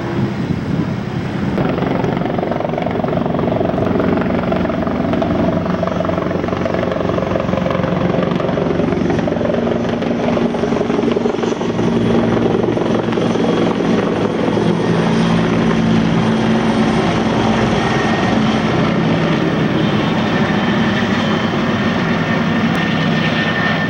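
Helicopter flying close by: continuous loud rotor and engine noise whose pitch drifts slightly as it moves.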